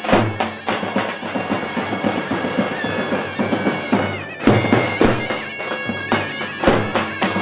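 Zurna (Turkish double-reed shawm) playing a loud, reedy folk dance melody over the beat of a davul bass drum, in Barak Turkmen halay music.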